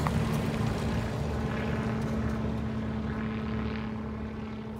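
A late-1930s sedan's engine running as the car pulls away, with a low rumble and a steady hum that slowly fade.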